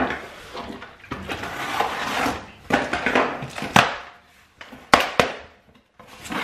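Kitchen clatter: a series of separate knocks and clinks from dishes and containers being handled and set down, the sharpest a little under four seconds in and twice about five seconds in.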